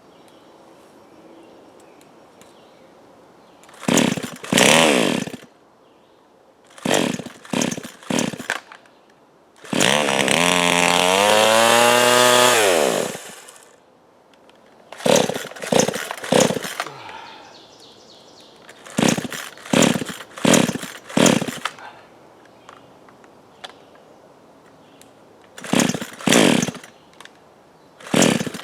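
Gas chainsaw revving in a series of short bursts, each dropping away to near quiet in between, with one longer run of about three seconds around the middle whose pitch falls as it dies down; it picks up and runs steadily right at the end.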